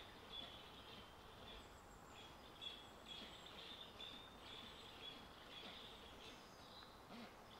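Quiet woodland ambience, near silence, with faint, continuous high-pitched chirping over a low hiss.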